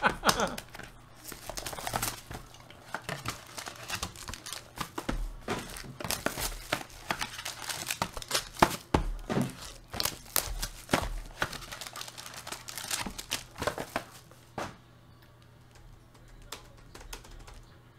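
Trading-card packaging being handled: irregular crinkling and crackling of cardboard boxes and foil or plastic wrap, with a few sharper rustles. It dies down about three seconds before the end.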